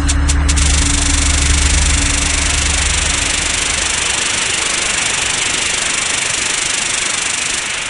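A steady low hum under loud hiss. The hum fades out about three seconds in, leaving an even, static-like hiss.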